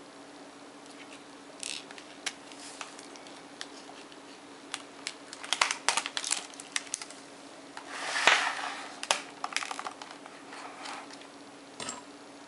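Paper pages of a pop-up book being handled and turned: crinkling paper with scattered light taps and clicks, and a louder rustle about eight seconds in. A faint steady hum runs underneath.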